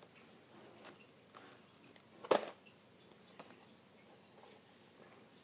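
Quiet handling noise, a few small clicks with one sharper click about two seconds in.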